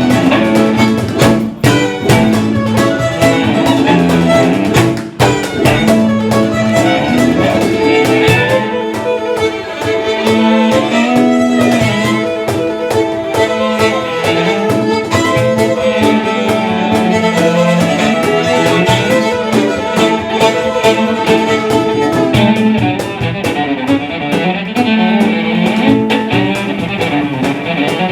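Live band music with fiddle and guitar playing.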